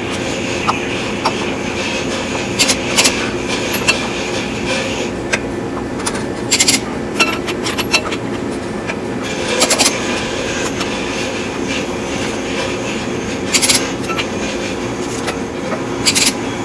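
Sharp metallic clicks and clanks every few seconds, from a torque wrench tightening the flywheel bolts on a 2005 Peterbilt, heard over a steady mechanical hum.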